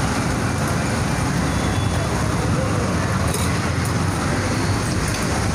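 Steady roadside traffic noise: an even hiss over a low rumble, with no distinct events.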